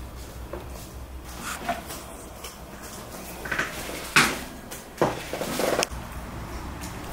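Metal clanks and a short rattle from a wire pet cage being handled: a sharp knock about four seconds in, then another knock a second later with a brief rattle.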